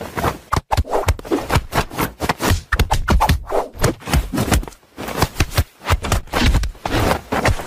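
Wooden whack-a-mole cat toy knocking and clattering as a kitten bats at its pop-up pegs and paws at the holes: a rapid, irregular run of wooden taps and scrapes.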